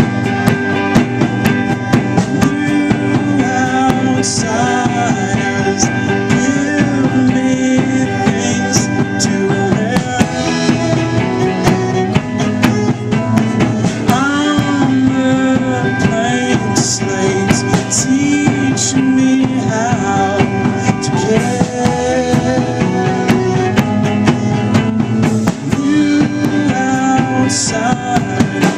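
A live band playing an instrumental stretch of a song, with drum kit and guitar, loud and continuous.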